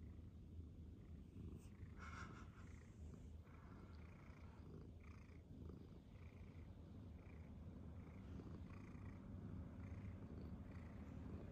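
Domestic cat purring close up, a faint, low continuous rumble, with short soft breathy sounds repeating about every second through the second half.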